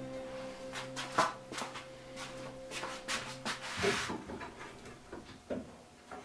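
Wooden board knocking and clicking as it is pushed into place on a pegboard, then hand saws clattering against each other on a wooden workbench as they are handled, loudest about four seconds in.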